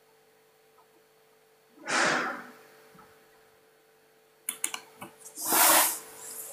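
Breathy noises and small clicks from a man sitting close to a phone microphone. A loud breath about two seconds in, then a few clicks and a second breathy burst near the end as he shifts in his seat.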